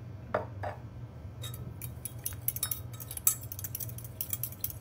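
A metal spoon stirring dressing in a glass measuring cup, clinking quickly and over and over against the glass from about a second and a half in.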